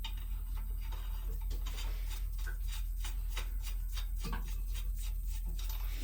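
A run of light, quick clicks, several a second, over a steady low hum.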